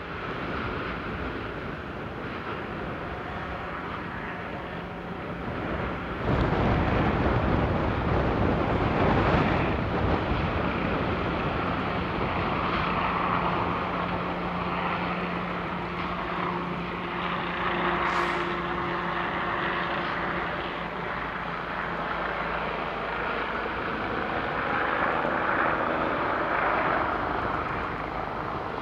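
Steady rushing roar of a lava fountain jetting from a small fissure-eruption spatter cone. It grows louder about six seconds in, with a faint steady engine drone underneath.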